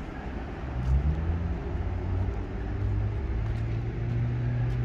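Steady low rumble of a running vehicle, with a low hum that shifts slightly in pitch.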